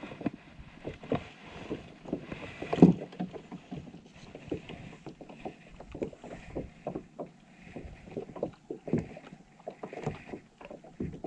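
Irregular clicks, knocks and rattles of fishing tackle and a just-caught fish being handled on a plastic kayak deck, with one louder knock a little under three seconds in.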